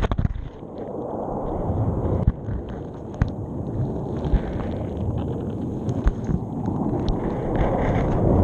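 Muffled underwater rumble and surge of the sea heard through a submerged GoPro's housing, swelling and easing, with sharp clicks and knocks as the camera is dragged against the sea bed.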